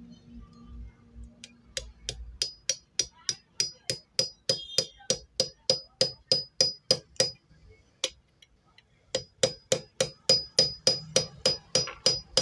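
Light hammer taps on a steel link fitting inside a sewing machine's mechanism, driving it gently onto its shaft. The taps come about three a second with a short metallic ring, pause briefly about two thirds of the way through, then resume.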